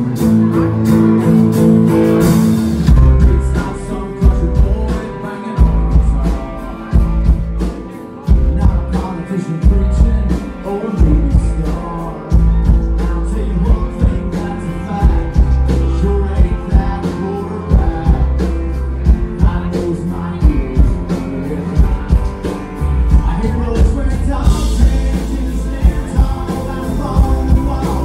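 Live country band playing with a steady drum beat, electric bass and strummed acoustic guitar; a fiddle is bowed near the end.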